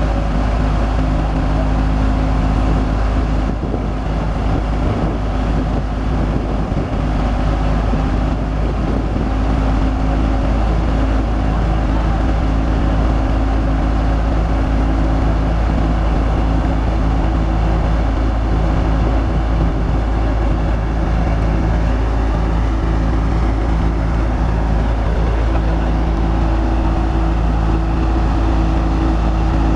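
Massey Ferguson 240 tractor's three-cylinder diesel engine running steadily under load, driving a wheat thresher through its PTO shaft, with the thresher's drum running as straw is fed in.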